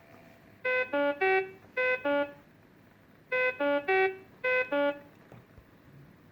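SPA-112 syringe pump sounding its occlusion alarm: two bursts of five melodic beeps, each three quick beeps then two. This is the pattern of a high-priority medical alarm, here signalling a blocked or kinked infusion line.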